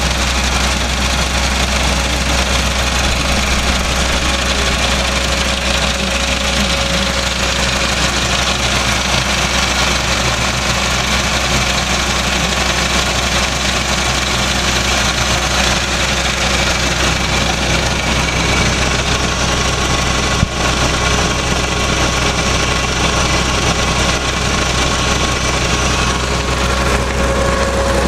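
Tractor engine running steadily at a constant speed, a deep even hum that does not change. One brief click about twenty seconds in.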